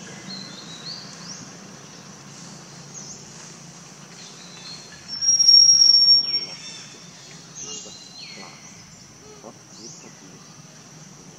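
Outdoor forest sounds: a steady high insect drone with repeated short bird chirps. About five seconds in, a loud, high, steady whistling call sounds for over a second, the loudest thing here.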